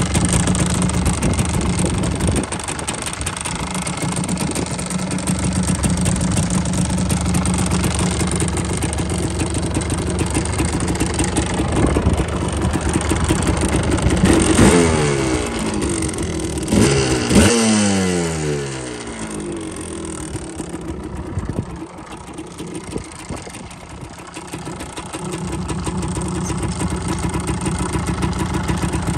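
Yamaha Tri-Z 250's two-stroke single-cylinder engine idling, then blipped twice to higher revs about halfway through, each time falling back before it settles to idle again.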